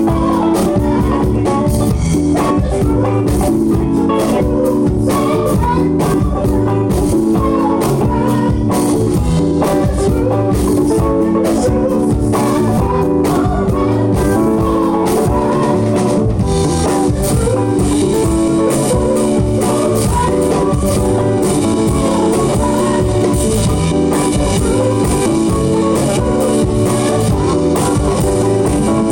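Live band playing with a steady beat: electric guitar, synth keyboards and drum kit.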